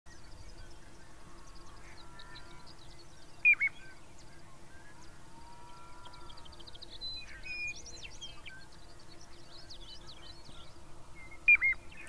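Piping plover giving a short, clear, falling two-note whistle twice, about eight seconds apart. Other birds chirp faintly and rapidly at a high pitch throughout.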